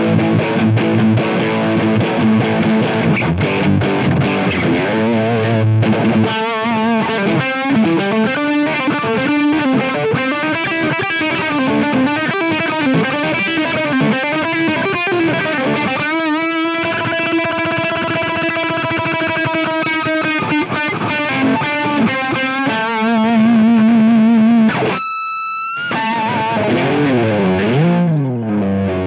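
Electric guitar played through an iSet Hot Distortion pedal with thick, saturated gain. It starts with distorted chords, then moves to a lead line of string bends and held notes with wide vibrato. Near the end comes a single high sustained note, then swooping bends low down.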